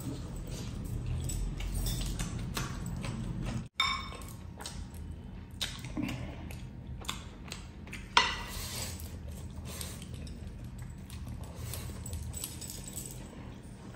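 Eating by hand: wet squelching and chewing of rice and gravy, with frequent small clinks of heavy metal rings and bracelets. Two sharper clinks with a short ringing tail come just before four seconds and at about eight seconds, the second the loudest.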